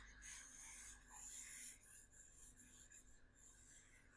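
Faint scratching of a pen stylus rubbed across a drawing tablet in several short strokes during the first two seconds, as handwritten work is erased.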